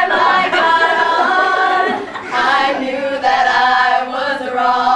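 A group of voices singing a cappella, holding long sustained notes, with a short break about two seconds in.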